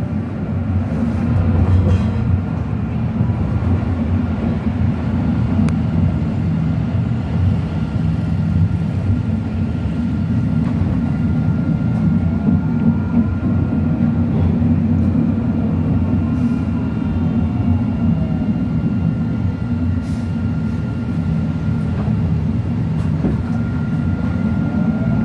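Tram running, heard from inside the passenger car: a steady low rumble with a thin whine that glides up and down in pitch as it speeds up and slows, and a few sharp clicks.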